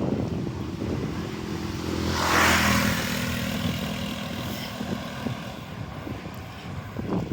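A motor vehicle passing close by: a steady engine hum with tyre and air rush that swells to a peak a little over two seconds in, then fades away.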